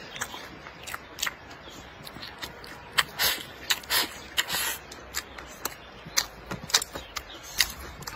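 A person eating rice from a bowl with chopsticks: wet mouth smacks and chewing clicks throughout, with a few seconds of slurping and sucking about three seconds in as food is pushed from the bowl's rim into the mouth.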